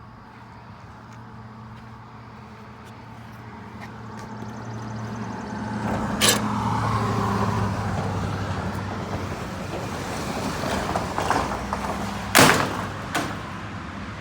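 Metal roll-up garage door rattling as it moves, over a steady low hum, with sharp metal clanks about six seconds in and twice near the end.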